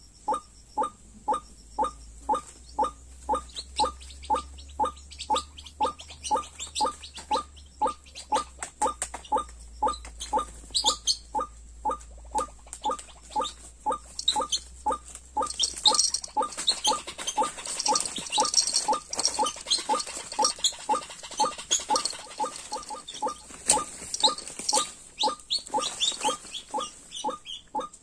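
White-breasted waterhen (dahuk) calling, one short call repeated steadily about twice a second, with higher chirps joining from about halfway.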